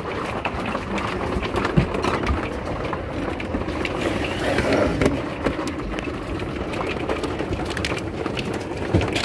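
Heavy rain mixed with hail pelting the fifth-wheel RV, a dense steady hiss full of small ticks, with a couple of sharper knocks about two seconds in and near the end.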